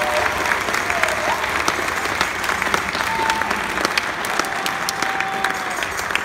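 Audience applauding after a dance performance: dense clapping, with a few drawn-out high calls from the crowd over it.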